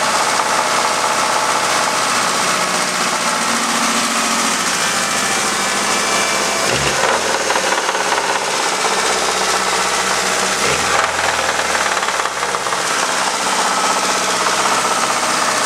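Ford ZX2's 2.0-litre Zetec four-cylinder engine running with a steady knocking from the bottom end: rod knock, the sign of a worn connecting-rod bearing.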